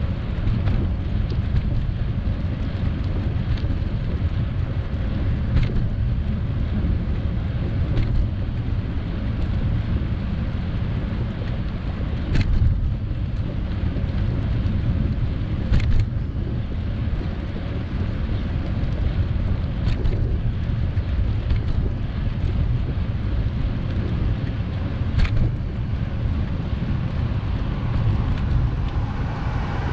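Steady wind rumble on the microphone of a camera riding on a moving bicycle, with a handful of sharp knocks spread through it.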